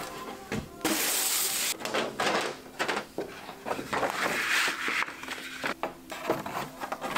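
Hand assembly of a poster frame: clicks and taps of the metal retaining tabs on its back being bent, with the rustle and slide of the hardboard backing and a large paper sheet. There is a loud rustle about a second in and another about four seconds in.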